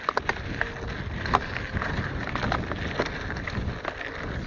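Wind buffeting the microphone and the rolling noise of a bicycle riding along the road, with many small clicks and rattles scattered through it.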